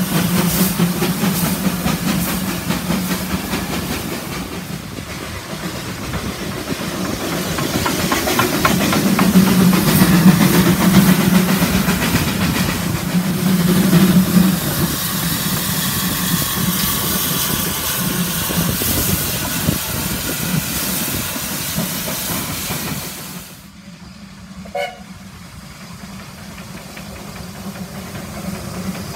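NGG16 Garratt steam locomotive passing close by at low speed: a steady hiss of steam over the rumble and clatter of its wheels on the rails, loudest about ten to fourteen seconds in. About twenty-three seconds in it drops to the quieter sound of a train further off, with a short whistle toot about a second later.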